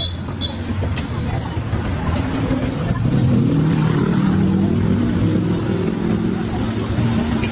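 A motor vehicle's engine running close by amid street noise, a low hum that grows louder about three seconds in, with faint voices under it.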